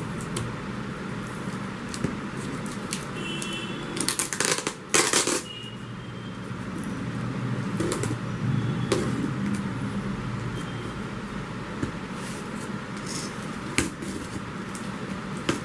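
Packing tape being slit with a utility knife and peeled off a cardboard box: scraping and rustling, with two loud tearing rips about four and five seconds in and a few light taps and clicks later, over a steady background noise.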